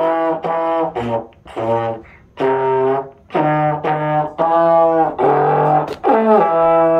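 Trombone played in a student's home practice: a tune of separate notes with a short break about two seconds in. Near the end a note slides down and is held.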